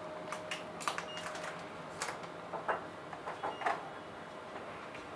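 Coordinate measuring machine's touch probe checking a pistol slide: a string of light, irregular clicks for nearly four seconds that then thin out, over a faint steady hum.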